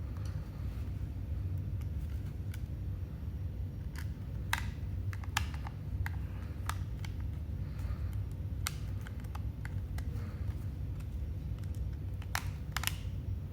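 Scattered small sharp clicks and taps of screws and a screwdriver on a laptop drive bracket as the SSD is screwed in, over a steady low hum.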